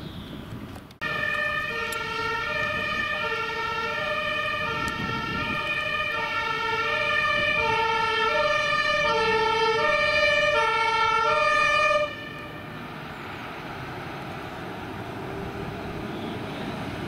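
German fire engine's two-tone siren (Martinshorn) alternating between a high and a low note. It starts abruptly about a second in and cuts off suddenly near twelve seconds, leaving a steady vehicle engine noise.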